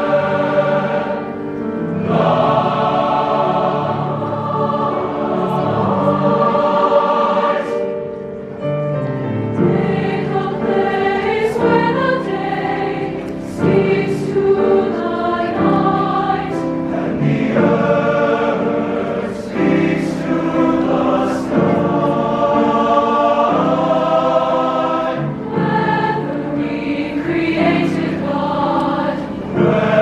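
A large mixed choir singing a cappella-style held chords in slow phrases, with a brief pause for breath about eight seconds in.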